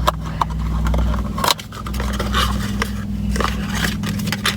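Small objects being handled at close range: scraping and rustling with a few sharp clicks, the strongest about a second and a half in, over a steady low hum.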